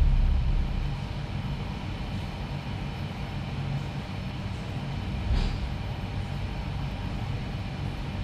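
Steady low background rumble, with one brief light click about five seconds in.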